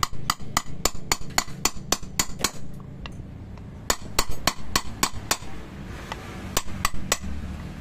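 Quick hammer taps driving a fan-motor bushing into a blender blade mounting, about four sharp taps a second in three runs with short pauses between.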